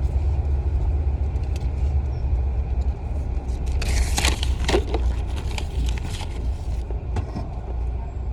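Low, steady rumble of a car's engine and road noise heard from inside the cabin, with a brief rustling scrape about four seconds in.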